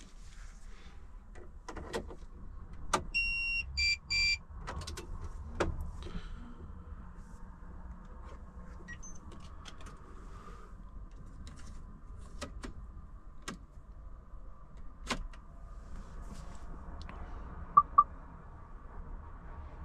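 Inside a Volvo FH460 truck cab: scattered clicks and knocks of switches and fittings over a steady low hum. A pitched two-part dashboard chime sounds about three to four seconds in, and two short, loud beeps come near the end.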